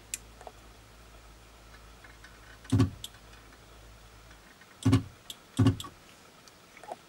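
Sunkko 737G battery spot welder firing three welds onto li-ion cell tabs: three sharp snaps, the first about three seconds in, the other two less than a second apart near the end.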